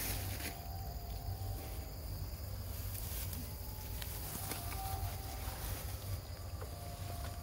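Outdoor ambience: a steady high insect drone over a low rumble, with a few faint soft clicks.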